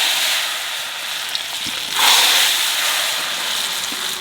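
Spices frying in hot oil for a khichuri tempering, sizzling loudly, with a fresh surge of sizzle about two seconds in.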